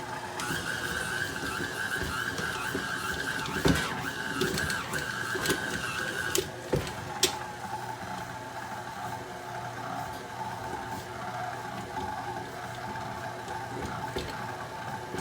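KitchenAid Artisan stand mixer's motor running with a steady whine, which drops to a lower pitch about six and a half seconds in as the speed changes. A few sharp clicks are heard along the way.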